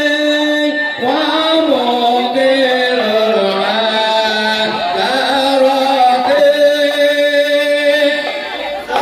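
Music with a solo voice singing a slow melody, holding long notes that glide and waver in ornamented turns.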